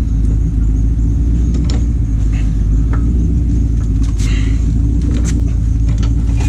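A steady low rumble, like a machine or engine running, with a few short knocks and clinks over it as the coil springs are handled.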